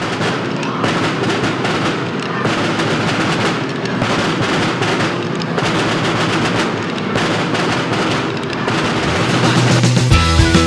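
A group of rope-tensioned marching drums beaten with sticks in rapid, dense strokes and rolls. Near the end, pitched music with a bass line and melody starts.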